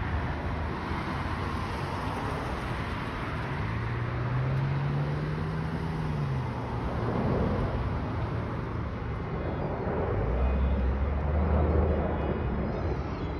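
Road traffic noise, with a vehicle's engine note rising and then falling a few seconds in and a low steady engine hum near the end.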